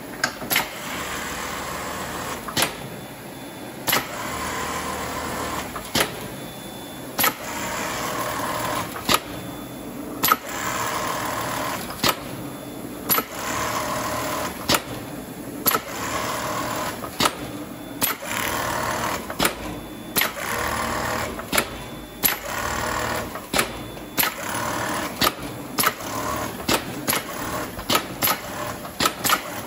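Strobel KA-ED automatic pad-stitching machine running: stretches of steady mechanical running broken by sharp clacks every one to two seconds, some in quick pairs.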